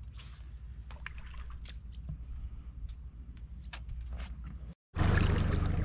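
Low steady rumble and water noise on a small fishing boat, with scattered light clicks. Near the end the sound cuts out for an instant and returns as a louder rumble.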